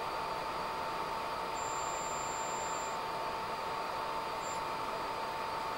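Piezo buzzer of an ultrasonic dog-repeller circuit being tuned up from about 18 kHz toward 22 kHz, its tone mostly too high to be heard. What remains is a steady hiss with a faint steady whine, and a thin high tone for about a second and a half near the middle.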